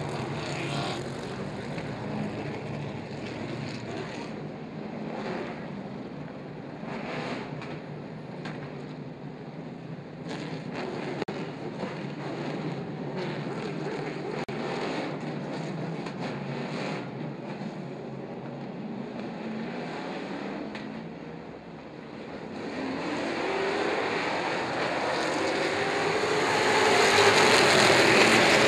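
Engines of a pack of race trucks running around a short oval, the sound swelling and fading as the field laps. Near the end it grows loudest as trucks pass close, with the pitch rising and falling as each one goes by.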